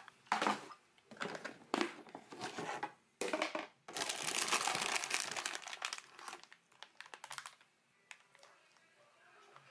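Plastic food container being handled, with a few sharp plastic knocks as its lid comes off, then the plastic wrapper of an instant noodle packet crinkling as it is pulled out and handled, dying away near the end.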